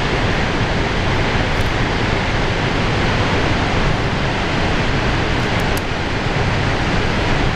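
Loud, steady rush of a large waterfall: dense, even noise of falling water with no breaks.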